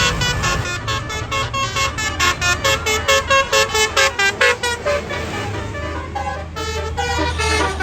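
Tour bus playing a melody on a Basuri multi-tone telolet horn: a fast run of short staccato notes, about five a second, then slower held notes over the last few seconds, with the bus's engine running underneath.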